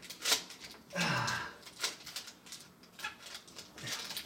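Scattered clicks and rustles of power cords and plastic being handled and fastened, with one sharp click a moment in and a short low grunt about a second in.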